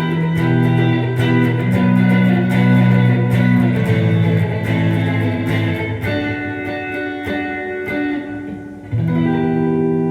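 1980s Tokai ST-50 electric guitar played unaccompanied: picked chords ringing out. A fresh chord is struck about nine seconds in and left to ring.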